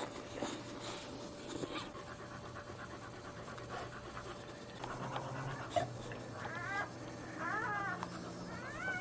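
Dog in labour panting, with short high wavering whines or squeaks several times in the last few seconds.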